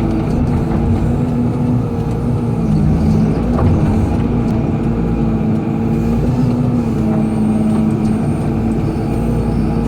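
Hydraulic excavator's diesel engine running steadily under work, its pitch dipping and rising a little as the machine works, with a few light clicks and knocks.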